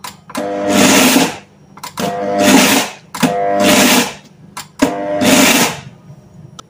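Electric mixer-grinder (mixie) pulsed four times, each burst about a second long with short pauses between: the motor whirs up and soaked jowar (sorghum) grains rattle and churn in the small steel jar as they are broken coarsely.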